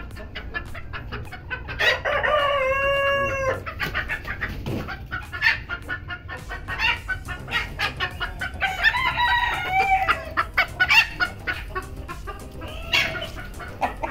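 Bantam chickens clucking throughout, with a rooster crowing, one long held call about two seconds in, and another long drawn-out call around nine seconds in.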